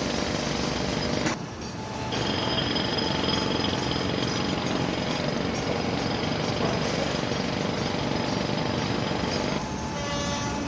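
Jackhammer hammering steadily at a building construction site, pausing briefly a little over a second in, then resuming. Near the end the hammering stops and a steadier machine hum is left.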